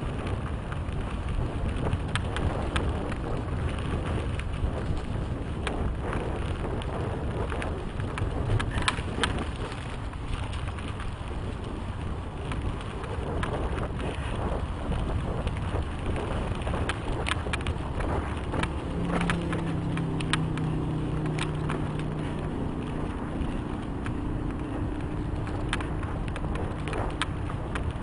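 Mountain bike ridden fast down a dirt trail, heard from a helmet camera: steady rushing tyre and wind noise with frequent clicks and rattles from the bike over bumps. A low steady hum joins about two-thirds of the way through.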